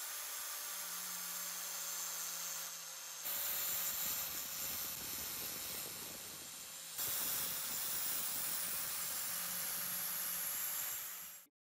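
Angle grinder with a polishing disc running along a steel dagger blade coated in blue polishing compound: a steady motor whine under a hiss. It turns louder in steps about three and about seven seconds in, and stops abruptly near the end.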